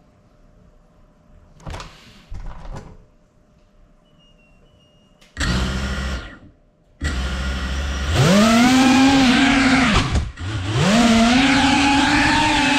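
FPV quadcopter's electric motors and propellers spinning up: after a couple of faint knocks, the motors start about halfway through, rise to a high whine, drop off briefly, then climb again and hold a steady loud whine.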